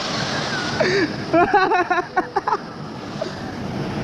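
Steady rush of a waterfall pouring into a pool. A man's voice calls out from about one to two and a half seconds in.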